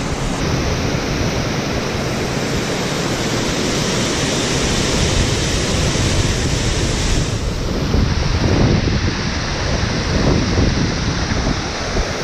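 Steady loud rush of water churning below a dam spillway, with wind buffeting the microphone; the hiss turns a little duller about seven and a half seconds in.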